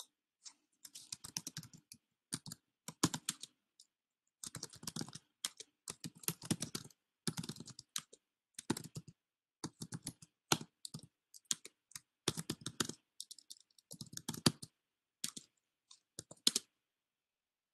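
Typing on a computer keyboard: short bursts of keystrokes with brief pauses between them, a word at a time.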